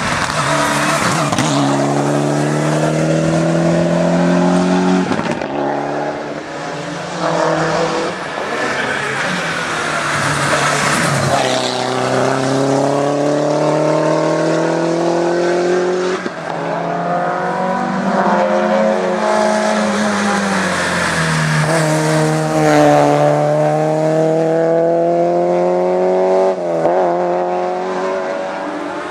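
Race car engine revving hard through the gears on a hillclimb course, its pitch climbing and then dropping at each gear change, with a stretch of falling pitch about two-thirds of the way through as it slows.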